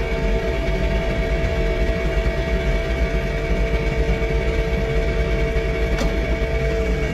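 John Deere 3046R compact tractor's diesel engine running steadily under snowblowing work, with a steady whine over a low rumble and a single click about six seconds in.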